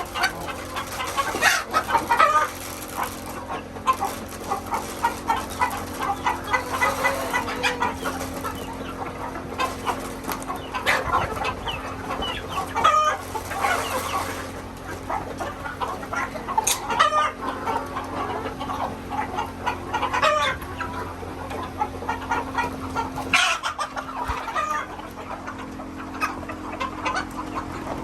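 A flock of chickens clucking over and over, with calls overlapping throughout, above a steady low hum.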